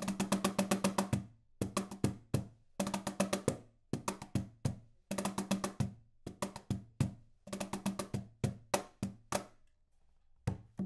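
Birch plywood cajon with internal snare wires, played by hand: quick runs of finger taps mixed with deeper slaps on the front panel, in short phrases with brief pauses between them.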